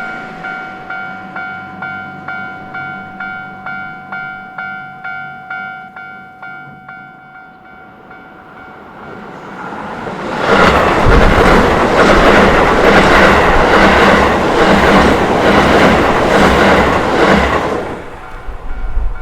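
Japanese railway level-crossing alarm ringing in quick, even strikes, not quite two a second, fading away over the first seven seconds. A Keio Takao Line electric train then passes over the crossing from about ten seconds in, loud, with a rhythmic clatter of wheels over the rail joints for about eight seconds.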